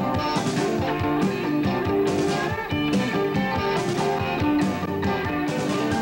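A rock band playing a song, with guitar prominent over a steady beat.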